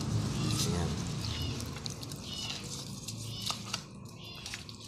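Hands rubbing salt and pepper into raw chicken pieces on a plate: soft, wet handling sounds with a few light clicks in the second half. Faint chirping calls sound in the background.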